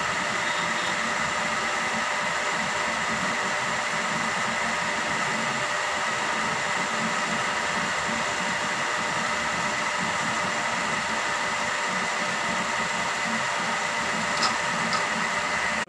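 Centre lathe running steadily, its motor and gearing giving a constant hum with a high whine, while a drill held in a drill chuck on the tailstock is fed into the spinning metal workpiece.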